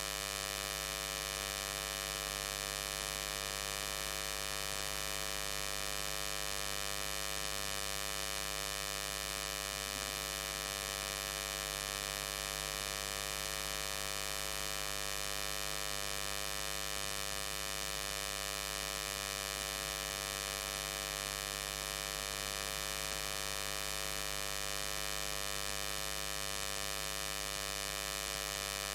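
Steady electrical buzz with many even overtones, unchanging throughout: interference noise that the uploader puts down to the power inverter running the lights.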